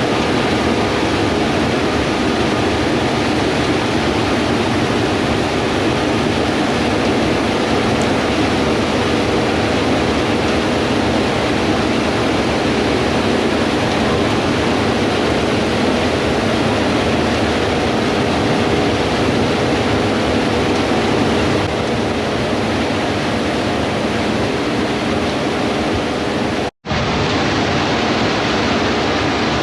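Combine harvesters working wheat, a steady mechanical running noise with a faint engine drone under it. The sound cuts out for a split second near the end.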